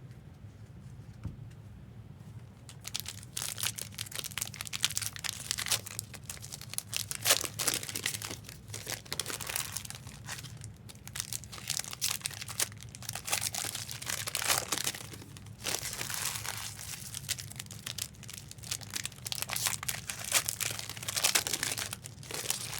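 Trading card pack wrappers being torn open and crinkled: a dense, irregular run of crinkling and tearing that starts about three seconds in.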